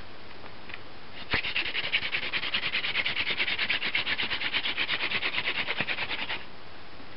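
Elder hand-drill spindle spun hard between the palms in a sotol hearth board: a rapid rhythmic rasping of wood on wood, several strokes a second, starting with a knock about a second in and stopping about five seconds later. It is a pressure run, pushing down hard at speed, which brings an ember in just under five seconds.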